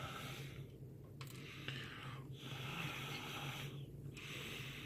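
A man's breathing close to the microphone: hissing breaths in and out, one about every second and a half, over a low steady hum.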